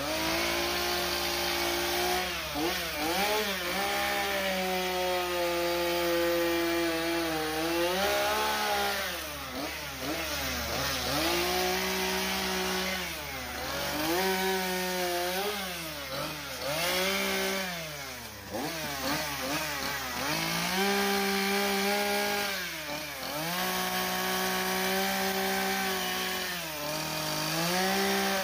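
Two-stroke gas chainsaw cutting into a wood carving. The engine revs up and holds at high speed through each cut for a few seconds, then drops back toward idle between cuts, over and over.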